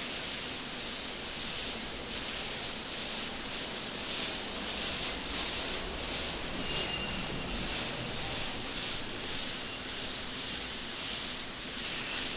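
Airbrush spraying paint onto a wall: a steady hiss of air through the nozzle, swelling and easing slightly as the trigger is worked.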